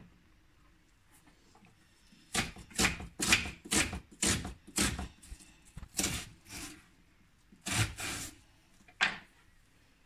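Kitchen knife cutting an onion on a wooden chopping board: about a dozen sharp knocks of the blade hitting the board, irregularly spaced over several seconds. A single light knock at the very start.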